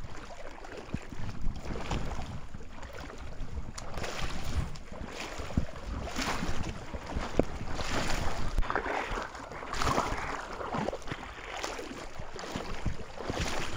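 Wind buffeting the microphone over water splashing and sloshing in shallows, from wading legs and a hooked fish fighting at the surface.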